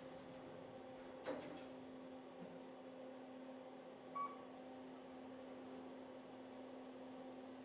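Quiet room tone with a steady low hum; a quick cluster of clicks a little over a second in and one short beep about four seconds in.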